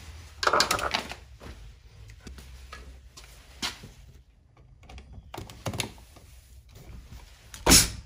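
Knocks and clatters from handling a duplex outlet and a cordless drill-driver at a plastic wall box, a cluster of them about half a second in and a sharp one near the end.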